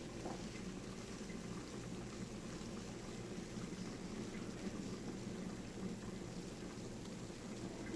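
Wash water gravity-draining from a twin tub washing machine's drain hose into a bucket, a steady pouring of water as the bucket fills.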